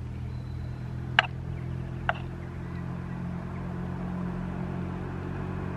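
Spoon clinking twice against a small metal cooking pot, about a second apart, over a steady low hum.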